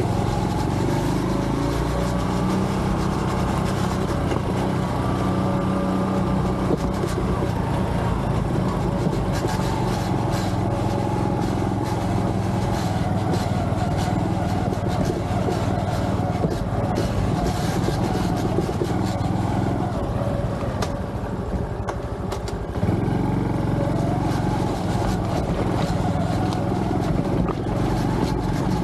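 Honda Trail 125's single-cylinder engine running as the bike rides a rough, rocky trail, with scattered clicks and knocks over the stones. About two-thirds of the way through, the engine eases off for a couple of seconds, then picks up again sharply.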